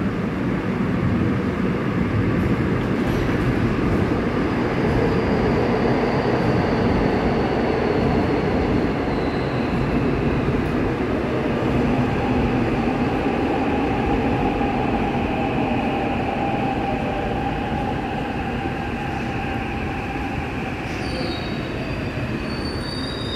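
Seoul Subway Line 6 train running into the platform behind screen doors and slowing to a stop: a steady rumble with whines that slowly fall in pitch as it decelerates, and short high squeals near the end as it halts.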